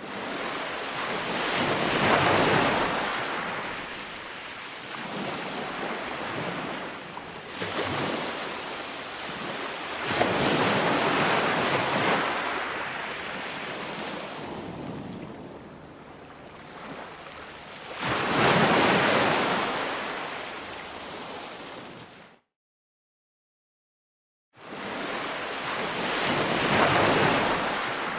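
Ocean waves breaking and surging, swelling loud and falling back every few seconds, with a wash of wind. The sound cuts to dead silence about two-thirds of the way through for a couple of seconds, then the waves come back.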